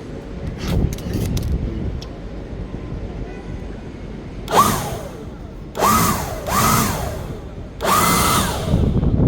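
A small handheld electric motor tool is run in three short bursts, its pitch rising and falling each time over a rush of air hiss. A few light clicks come about a second in.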